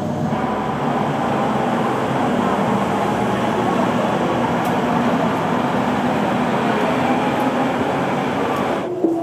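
Steady running noise of a train or similar vehicle in motion, an even rumble and hiss with a faint tone running through it, cut off suddenly just before the end.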